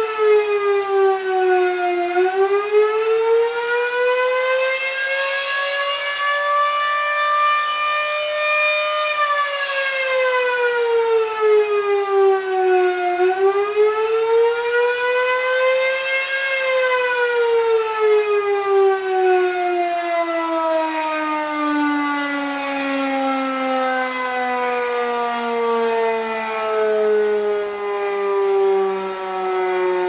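Single-phase Federal Signal Model 7B warning siren sounding a wail, its pitch sliding slowly down, up, down and up again. About sixteen seconds in, a DTMF cancellation shuts it off and it winds down in one long falling tone.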